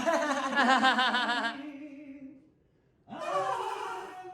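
A man's voice holding a sung note with a fast, wide wobble, cut off about two and a half seconds in. After a short silence a voice slides up into another held note.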